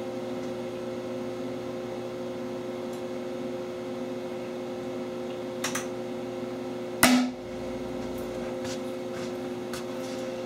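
A charge of HHO (oxyhydrogen gas from an electrolysis cell) ignited inside a PVC tube: one sharp bang about seven seconds in, preceded by a couple of faint clicks. A steady electrical hum from the rig runs underneath.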